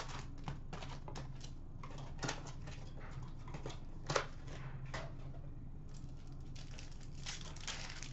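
Hands opening a cardboard hockey card box and handling its sealed foil packs: irregular rustling, crinkling and small clicks of cardboard and wrappers, with a sharper snap about four seconds in, over a steady low hum.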